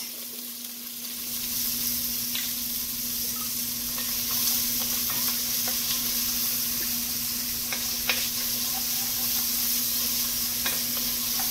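Chopped shallots and minced garlic sizzling in oil in an enamelled Dutch oven, stirred with a wooden spoon. A few faint knocks are spread through the steady sizzle.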